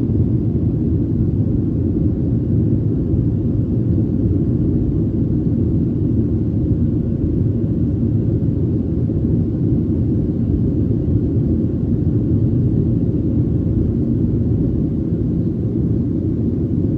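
Steady, deep rumble inside the cabin of a Boeing 737-700 climbing after takeoff: its CFM56-7B engines at climb power and air rushing past the fuselage, heard from a window seat over the wing.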